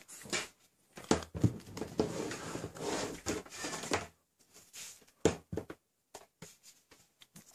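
Handling noise: rubbing and scraping for about three seconds, then a scattering of light clicks and taps.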